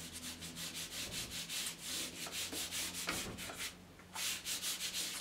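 Watercolour brush scrubbed across the paper in quick dry-brush strokes: a rhythmic scratchy rubbing at several strokes a second, with a brief pause about four seconds in.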